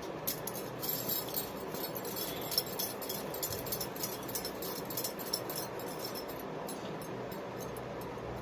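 Light, quick metallic clinks and tinkles as pieces of food are handled and set down on and around a steel plate, over a low steady hum.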